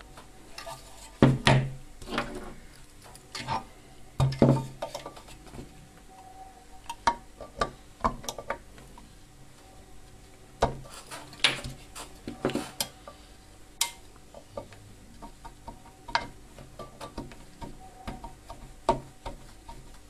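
Thin screwdriver prying and scraping at the crimped sheet-steel casing of a microwave-oven magnetron, bending the metal cover loose: irregular metallic clicks, scrapes and clinks. There are louder knocks about a second and about four seconds in.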